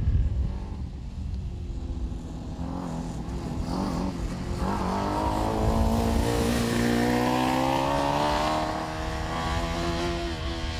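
Engine of a compressed-natural-gas-fuelled single-seat race car running as the car is driven: a steady rumble, with the engine revving up over a couple of seconds about halfway through, holding there, then easing off slightly near the end.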